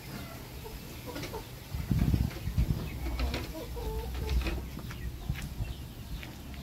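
Gamecock clucking in short calls a few times. A low rumbling thump comes about two seconds in.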